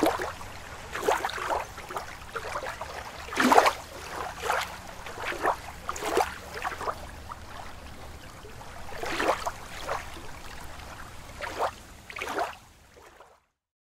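Water splashing and sloshing in irregular bursts, roughly one a second, over a steady low hum; the loudest splash comes about three and a half seconds in, and the sound cuts off suddenly near the end.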